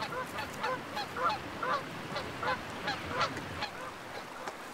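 Canada geese honking: a run of short honks, about two or three a second, that stops about three and a half seconds in.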